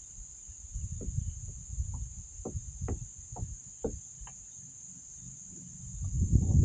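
Insects buzzing, a steady high drone, with a run of sharp ticks during the first four seconds and a low rumble that swells near the end.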